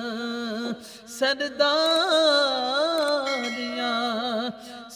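A man singing a Punjabi naat, drawing out long melismatic notes with a wavering vibrato. He breaks off briefly about a second in and again near the end, then starts the next line.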